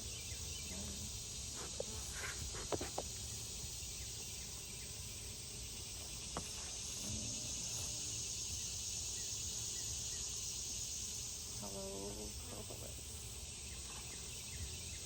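Steady high-pitched chorus of crickets and other insects, swelling for a few seconds in the middle, with a few light clicks and a brief faint voice near the end.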